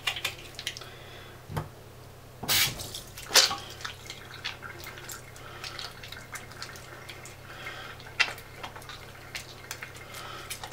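Wet hands rubbing a bar of soap and working up a lather over a sink: soft, irregular squishing and dripping water, with a couple of louder wet slaps or knocks a few seconds in.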